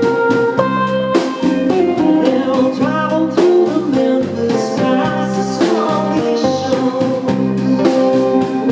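Live band playing a country-rock song: guitars and a drum kit keeping a steady beat, with pitch-bending notes over the top in the middle.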